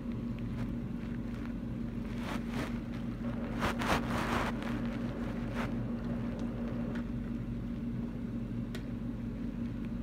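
A steady low hum on the call line, with a few brief bursts of rustling noise about two and a half and four seconds in.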